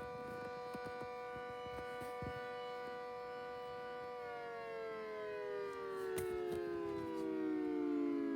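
Gents air raid siren wailing, holding one steady pitch for about four seconds and then sliding slowly down in pitch as it winds down.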